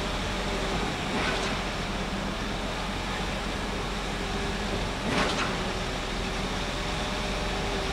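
Steady city street traffic noise, with two brief louder sounds about a second in and about five seconds in.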